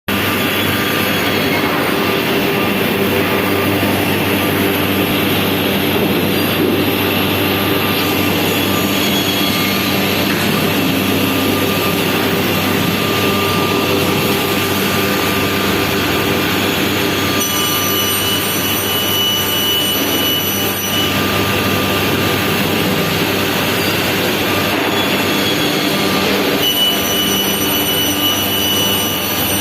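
Biesse Rover K CNC wood router running: a loud, steady machine noise with several held tones, and high whining tones that come in twice, from just past the middle and again near the end.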